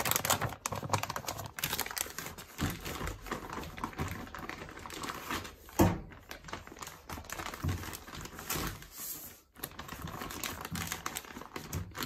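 A plastic document wallet and the paper booklets inside it being handled and opened, making a steady run of crinkling, rustling and small clicks, with one sharper knock about six seconds in.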